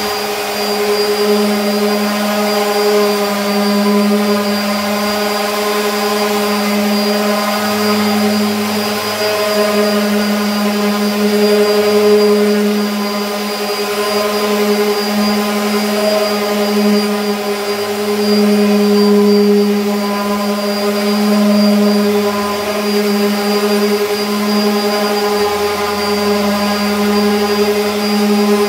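DeWalt 5-inch orbital palm sander running with 220-grit paper on wood, a steady motor hum that swells and eases slightly as it is worked across the surface.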